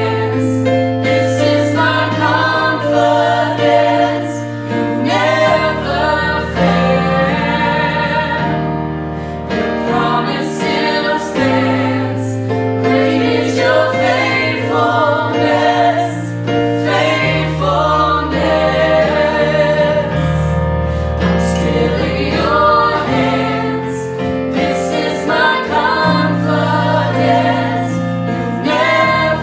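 Gospel worship music: voices singing together over sustained bass and keyboard chords.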